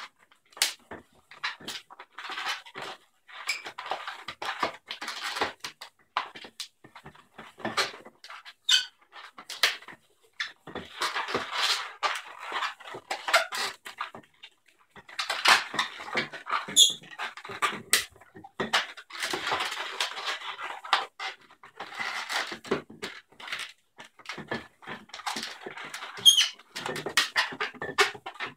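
White latex modelling balloon (160-size) being twisted by hand into bubbles, the rubber rubbing, crackling and squeaking in irregular spells, with a few short high squeaks.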